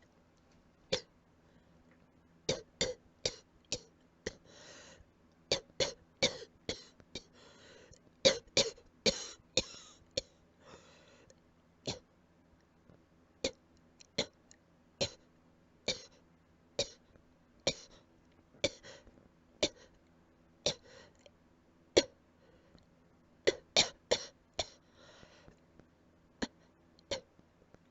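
Quiet allergy cough: many short, sharp coughs, often in quick runs of two to four, with a few longer breathy sounds between them.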